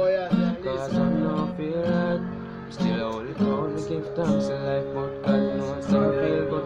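Acoustic guitar strummed and picked, playing a repeating chord pattern with sharp strokes and ringing chords.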